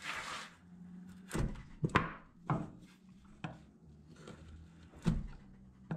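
Beavercraft hook knife cutting into the wood of a carved dish: a longer scrape at the start, then about five short, separate slicing strokes. The blade is sharp and takes clean cuts.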